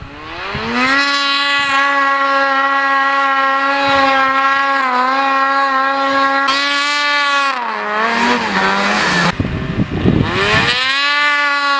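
Ski-Doo 600 snowmobile engine revving up and holding high revs as a steady high-pitched drone. About seven and a half seconds in the revs fall away into a low, uneven rumble, then climb back up to the same steady pitch about a second before the end.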